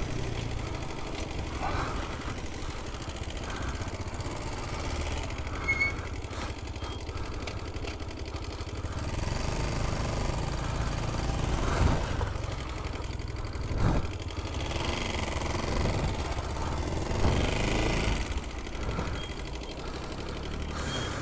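Small ATV engines running, their sound swelling and easing as they ride, with a few brief knocks.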